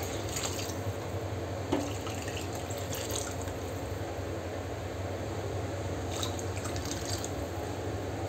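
Thinned tamarind water poured from a steel bowl into a clay pot of beans and vegetables, splashing as it fills the pot. A steady low hum runs underneath, with a few light clicks.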